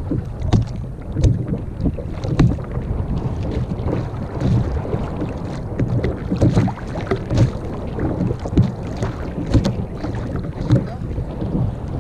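Sea water lapping and slapping against a kayak's hull, with irregular louder slaps about once a second, over a steady low rumble of wind buffeting the microphone.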